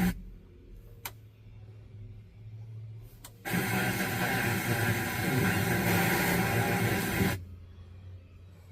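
Newly installed truck radio with poor reception: two button clicks, then a loud burst of radio static from about three and a half seconds in that cuts off suddenly after about four seconds.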